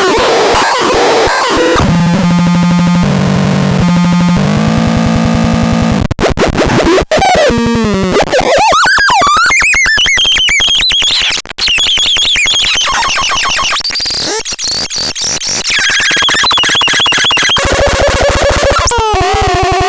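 Synthesized electronic sound effects from a BaIOTEX 03 sound demo: a buzzy drone that shifts pitch in steps, then fast warbling pitch sweeps, then stepping beeps and another low buzz, with rising sweeps near the end.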